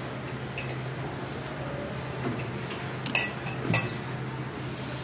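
A metal serving spoon and a stainless steel pot clinking against each other and the plates as rice is served, a few light clinks with two louder ones about three seconds in, over a steady low hum.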